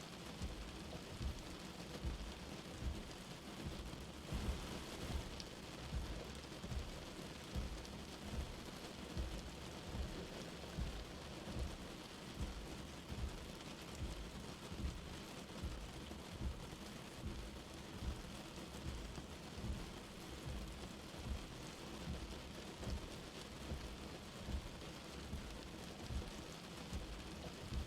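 Light rain falling in a steady, even patter, with a soft low thud repeating a little more than once a second throughout.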